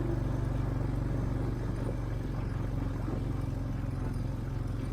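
Farm tractor engine running at a steady speed, with a low, even drone.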